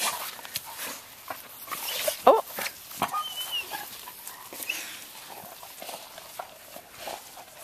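Dogs playing with sticks in the grass: scattered clicks, knocks and rustles of wood in their mouths and paws on the lawn, and a brief vocal sound from a dog a little over two seconds in, the loudest moment.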